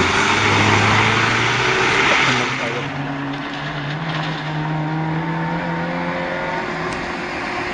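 Rally car engine running hard through a water splash, with the rush of spray thrown up. About two and a half seconds in, the sound changes to a distant rally car approaching on a gravel forest stage, its engine a steady note that rises slowly as it nears.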